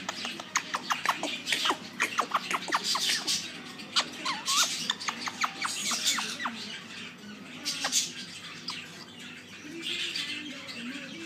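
Indian ringneck parakeet chattering in a quick run of short chirps and clicks, which thin out after about eight seconds.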